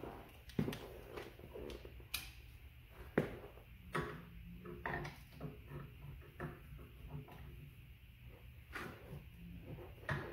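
Metal-on-metal clinks and knocks of a hand wrench working on the bolt that holds a Craftsman 12-inch lathe's headstock, with a run of quicker light clicks in the middle, over a low steady hum.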